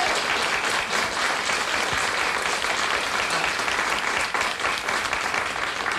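Studio audience applauding, a steady, even clapping at the end of a song.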